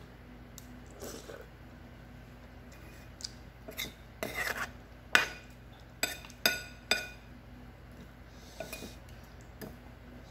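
Metal spoon and chopsticks clinking and scraping against a ceramic bowl while eating, with about half a dozen sharp ringing taps in the middle, the loudest about five seconds in.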